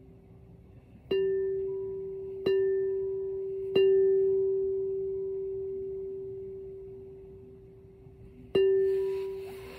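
Crystal singing bowl struck with a mallet four times: three strikes about a second and a quarter apart starting about a second in, then one more near the end. Each strike rings on as one steady, slowly fading tone with a few fainter higher overtones, and a faint rustle of handling comes in after the last strike.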